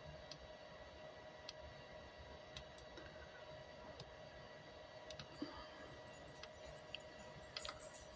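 Faint steady hum with a few short, sharp clicks at irregular intervals, a little busier near the end.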